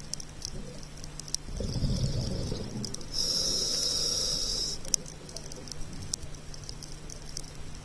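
A scuba diver breathing through a regulator. A rumble of exhaled bubbles starts about one and a half seconds in, then a breath drawn in as a hiss of about a second and a half. Faint sharp clicks are scattered throughout.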